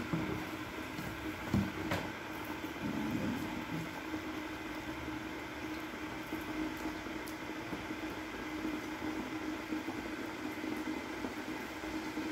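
A steady low mechanical hum, like a running motor, with a faint click about two seconds in.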